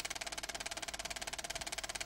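A steady, rapid fluttering whir, pulsing evenly over twenty times a second, with a steady mid-pitched tone under it.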